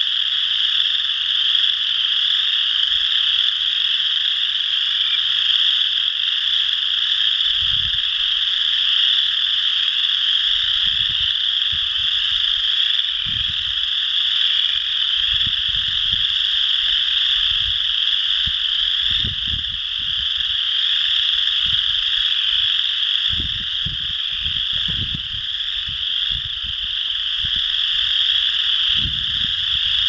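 Chorus frogs calling in a dense chorus, many trilling calls overlapping into one continuous high-pitched sound.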